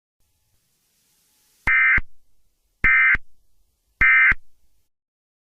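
Emergency Alert System end-of-message data tones (SAME 'NNNN' code): three short, loud, buzzy two-tone data blasts about a second apart, marking the end of the alert.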